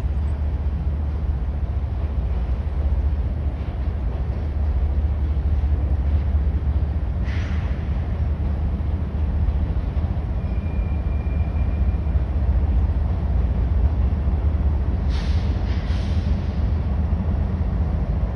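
Union Pacific freight train rolling by with a steady low rumble, broken by short high squeals about a third of the way in and twice near the end.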